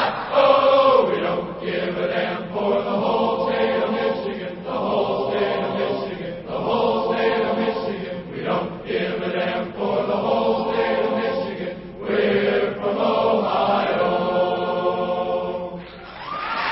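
Many voices chanting in unison, in held phrases of about two seconds each with short breaks between.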